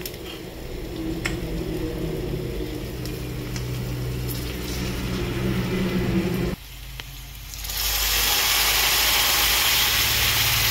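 A steady low hum with a light rattle, which cuts off about six and a half seconds in. About a second later a loud, steady sizzle begins as cooked dal is poured from a pressure cooker into the hot tempering in the kadhai.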